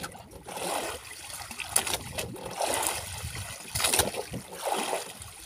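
Sea water lapping and splashing against the hull of a small wooden boat, with a few sharp knocks, about two seconds in and again about four seconds in.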